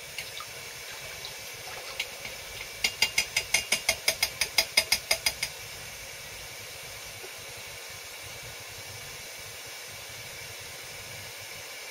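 Steady faint hiss from a hot, plastic-and-sand-coated fishing lead cooling in a bowl of water. A quick, even run of about sixteen light clicks, roughly six a second, comes between about three and five and a half seconds in.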